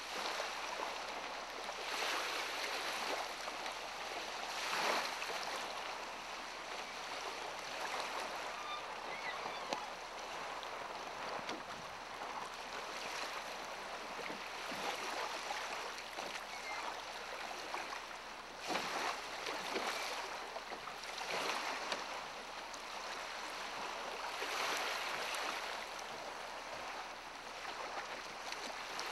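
Wind and choppy water on an open lake: a steady rushing noise that swells and eases in gusts every few seconds, with no engine running.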